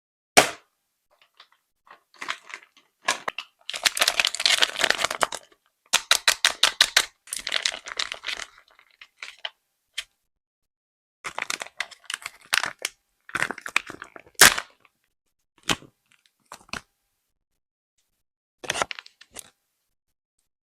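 Soft, stretchy squishy toy being squeezed and pulled, giving bursts of sticky crackling and tearing sounds with short pauses between them. About six seconds in there is a quick run of clicks, roughly eight a second.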